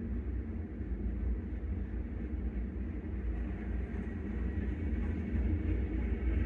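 Freight train rolling past, a steady low rumble of its cars on the track.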